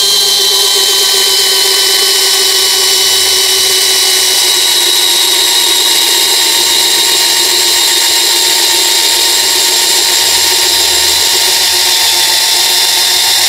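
Kingblue 13 mm brushless cordless drill running continuously under heavy load, boring a wood auger bit into a log. The motor whine is steady and sags slowly in pitch as the bit goes deeper.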